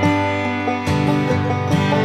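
Background music: a lively tune on plucked string instruments, with quick notes over steady held tones.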